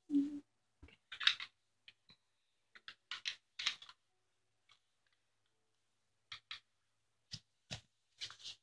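Scattered short rustles and clicks of clothing and handling close to the microphone as a jacket is put on, coming in irregular bursts with quiet gaps between them.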